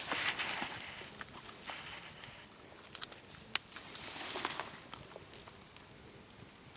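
Scattered crackles from a Swedish torch log fire burning under a small pot, with rustling in dry leaves and one sharp snap about three and a half seconds in.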